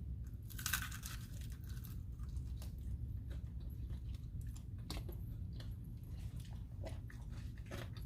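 A person chewing barbecued pork ribs close to the microphone: irregular wet clicks and smacks of eating, over a steady low hum.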